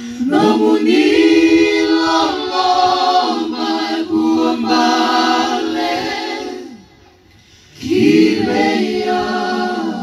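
A small group of women singing together into handheld microphones, amplified through a PA. They sing a long phrase of held notes, break off for about a second, and start a second phrase near the end.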